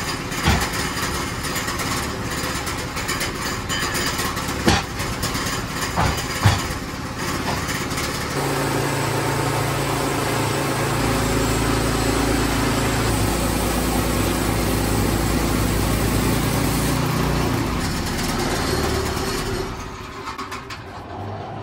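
Woodland Mills HM122 portable bandsaw mill running, its engine and band blade sawing through a black spruce log. A few sharp knocks come in the first seconds, the engine note changes and strengthens about eight seconds in, and the sound drops away near the end.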